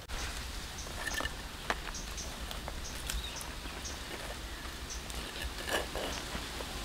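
Outdoor ambience with a low rumble and faint short bird chirps, broken by a few soft clicks and knocks.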